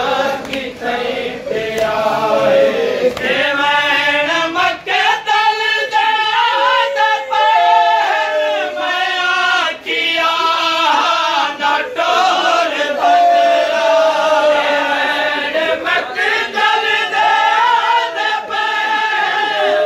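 Group of men chanting a noha, a Shia mourning lament, together in unison. A steady beat of sharp slaps runs under the voices, as of open-handed chest-beating (matam).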